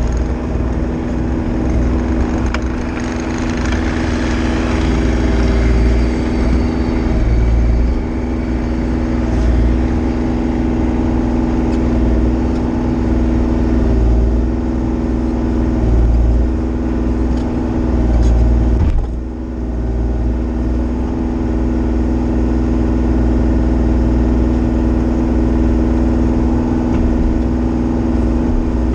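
Diesel engine of a Bobcat E35i mini excavator running steadily under load as it digs through frozen, compacted ground, with a brief drop in engine level about nineteen seconds in.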